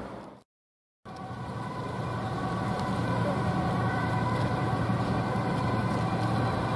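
Ambulance siren sounding over road traffic and engine noise. The sound drops out completely for about half a second near the start, then the siren and traffic resume steadily.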